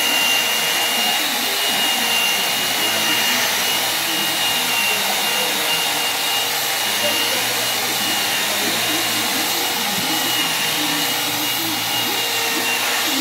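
Angle grinder with a polishing pad running at speed along the edge of a granite countertop, a steady motor noise with a thin high whine over it.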